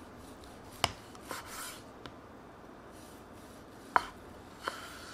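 Chef's knife slicing through a crusted steak on a wooden cutting board: two sharp knocks of the blade meeting the board, about a second in and about four seconds in, with a few fainter knocks and scraping strokes of the blade through the meat between them.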